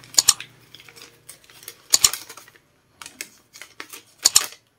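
A folded paper instruction manual being unfolded and handled: crisp paper rustling with three sharp crackles, about two seconds apart.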